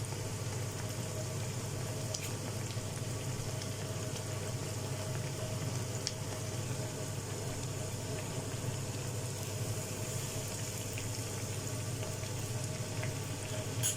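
Breadcrumb-coated bread pieces deep-frying in hot oil: a steady sizzle with a few faint crackles, over a steady low hum.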